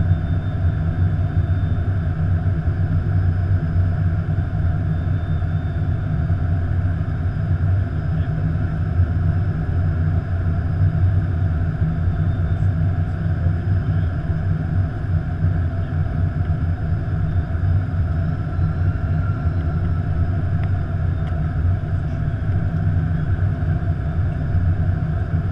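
Steady low rumble of airflow and engine noise inside the flight deck of an Airbus A330-200 on final approach.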